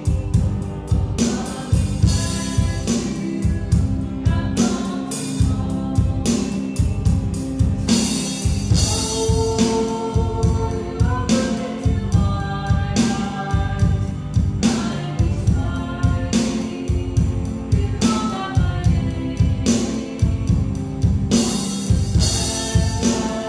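Worship song: voices singing over a steady drum beat of about two strikes a second, with instrumental accompaniment.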